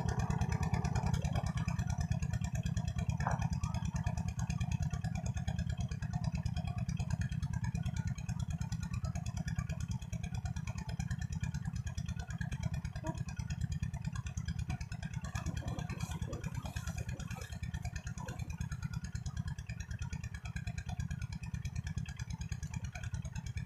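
A steady low drone with a fine, even pulsing, like a small engine running, unchanging throughout.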